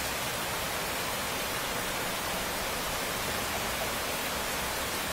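Steady rain ambience: an even, unbroken hiss with no separate drops or strokes.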